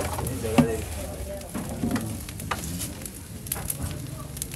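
Open wood fire crackling with scattered sharp pops as a whole cow's head roasts over it.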